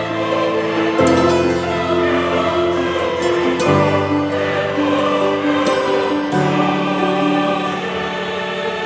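Background music: slow, sustained chords that change about every two and a half seconds.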